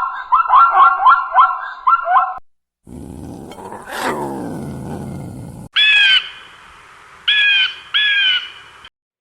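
Animal calls from three short clips in turn: a quick run of repeated calls, then a single sweeping call over a rough background, then three short, clear, slightly falling calls.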